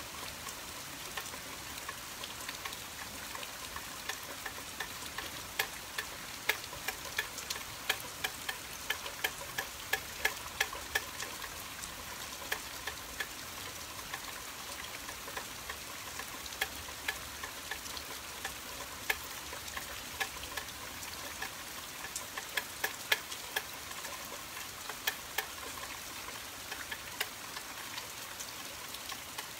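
Rain falling steadily, with many sharp drops tapping close by, the taps thickest about a fifth of the way in and again past the three-quarter mark.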